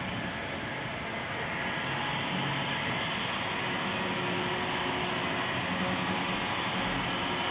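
Model railway train running on its track: a steady rolling noise.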